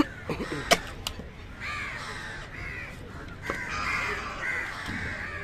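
A heavy cleaver chops through fish onto a wooden block, a few sharp knocks in the first second or so, while crows caw repeatedly through the rest.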